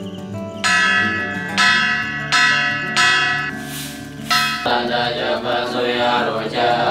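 Bell struck four times, each stroke ringing out and fading, over soft background music, followed by two airy swells and a denser shimmering passage near the end.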